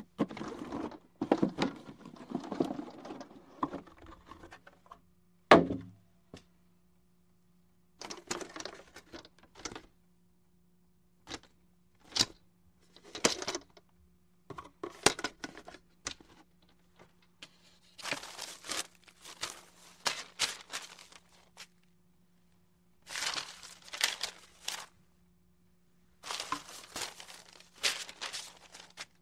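Board game pieces and packaging being handled: irregular bursts of rustling, crinkling and clicking with pauses between them, and one louder thunk about five and a half seconds in. A faint steady hum lies underneath.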